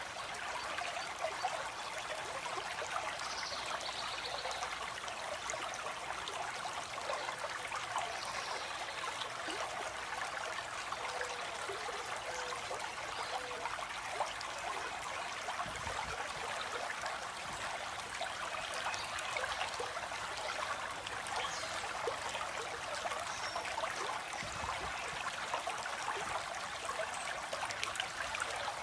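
Water flowing and trickling steadily, like a small stream splashing over rocks.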